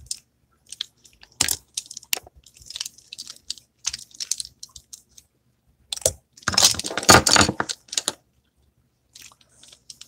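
Close crinkling, rustling and clicking of small objects, makeup brushes among them, being handled near the phone's microphone. The noises come in short scattered bursts, with one longer, louder spell of rustling about six and a half seconds in.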